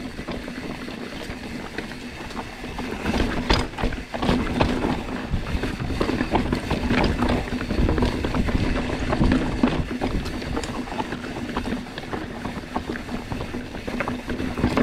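Mountain bike riding down a rocky trail: the tyres rumble and knock over loose rock while the bike rattles, with a steady buzz underneath. It gets louder and rougher about four seconds in.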